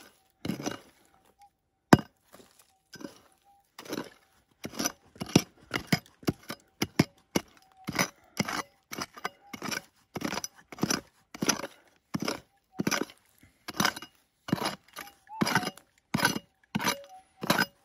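Steel prospecting pick chopping into rocky, gravelly soil. A few scattered strikes with one sharp, loud crack about two seconds in, then steady chopping at about two strikes a second, the point clinking on stones.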